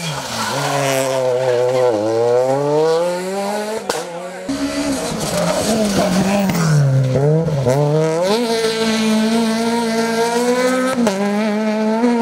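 Peugeot 208 rally cars' engines taking hairpin bends. The revs drop sharply as a car brakes and downshifts, then climb steadily as it accelerates out, and this happens several times in a row with abrupt cuts between passes.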